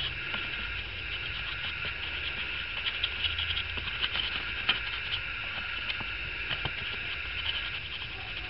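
A steady, high-pitched chirring background, with faint scratches and light taps as a small paintbrush dry-brushes oil paint onto an EVA foam piece.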